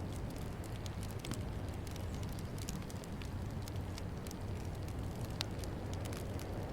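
Wood fire in a fireplace crackling, with frequent small sharp pops and one louder pop a little past five seconds in, over a steady low rumble.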